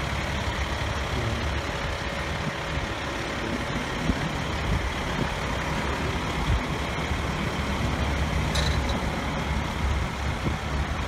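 Fire engine's diesel engine idling steadily, a low continuous rumble with a faint steady hum.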